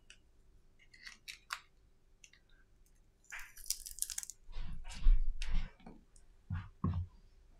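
Handling noise from smartphone repair parts being picked up and moved about: a few light clicks, then a crinkly rustle and several dull knocks, loudest about five seconds in.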